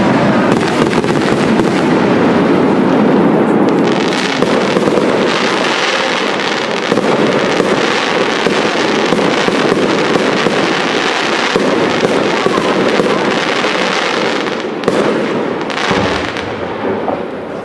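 Fireworks display: aerial shells bursting in a dense, continuous stream of bangs and crackle. It thins out near the end.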